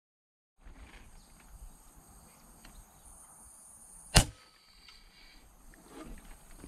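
A single shot from an FX Impact M3 PCP air rifle firing a 40-grain ZAN slug: one sharp crack a little past four seconds in, over faint outdoor background. No impact sound follows, because the shot missed.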